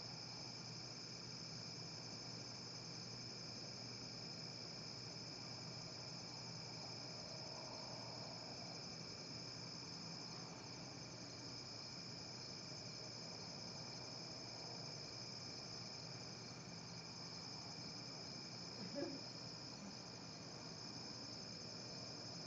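Faint, steady chorus of crickets trilling at night as one continuous high-pitched drone. About three-quarters of the way through comes one brief faint sound.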